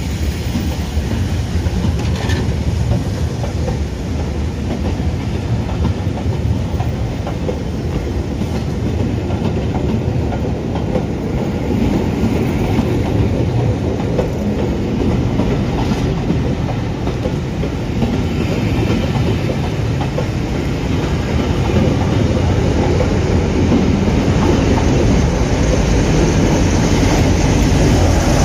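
Locomotive-hauled passenger coaches rolling past close by, their wheels clattering over the rail joints in a continuous roar. Near the end the Class 47 diesel locomotive on the rear comes past and its engine adds a steady low hum.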